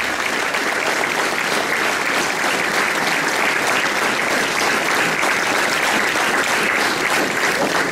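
Audience in a hall applauding steadily.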